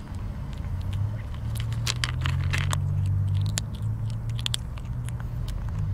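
Kitten crunching dry cat kibble from a bowl: a run of small, sharp crunches and clicks. Under it a low hum grows louder midway and then eases off.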